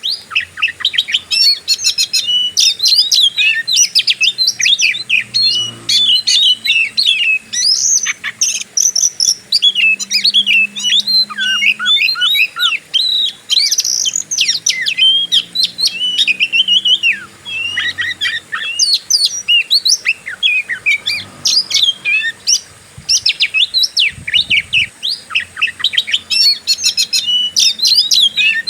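Oriental magpie-robin (kacer) singing a fast, unbroken, varied song of sharp chirps and whistles in the aggressive fighting style.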